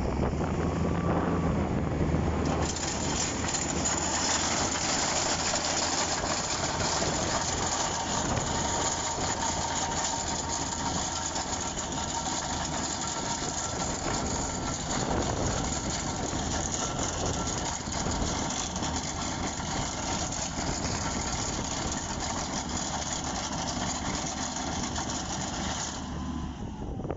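Motor grader's diesel engine working steadily under load as it drives along pulling its rear ripper teeth through a hard, 10–12-year-old road base. A steady hiss joins the engine about two and a half seconds in.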